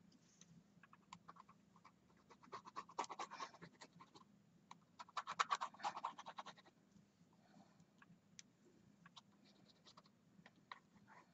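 Pencil scratching on paper as a line is drawn, in two runs of quick strokes, one about two seconds in and one about five seconds in, with scattered light ticks between.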